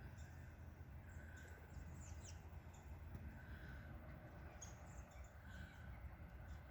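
Faint, high chirps of small birds, several short calls scattered through, over a steady low background rumble.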